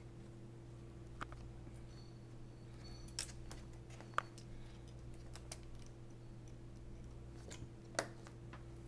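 Scattered light clicks and taps of small laptop parts and tools being handled during disassembly for a hinge repair, a few seconds apart, over a steady low hum.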